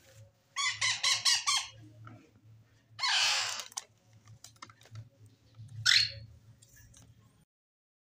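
Parrot chicks giving harsh food-begging calls: a quick run of about five chattering squawks, then a long raspy screech about three seconds in, and a short rising squawk near six seconds.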